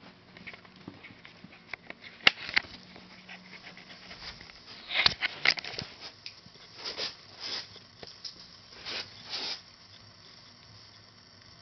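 Staffordshire bull terrier puppy sniffing in short bursts, several of them in the second half. Light scattered clicks run through it, with one sharp tap a little over two seconds in.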